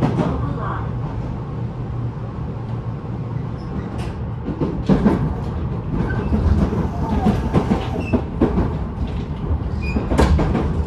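Running noise inside a Tobu 9050 series motor car with a Toyo GTO-VVVF inverter: a steady low rumble of wheels on track, with scattered clicks and knocks from the rails, heaviest about four to five seconds in and again near the end. The air conditioning runs underneath.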